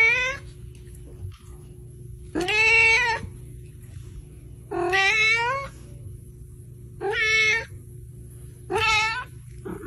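A cat meowing repeatedly: five drawn-out meows about two seconds apart, each bending in pitch.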